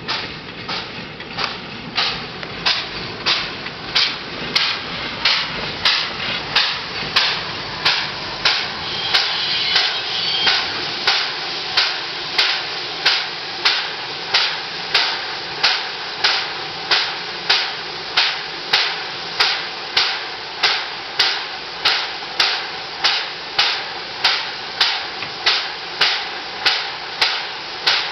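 Pt47 steam locomotive standing at the platform with its steam-driven air brake pump beating in a steady, even rhythm of about one and a half strokes a second. In the first seconds the low rumble of the train rolling to a stop lies under it, and a short hiss comes about ten seconds in.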